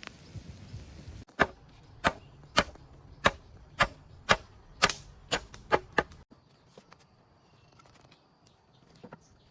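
A run of about ten sharp chopping strikes, roughly two a second, that stop suddenly near the end, with faint scattered ticks after.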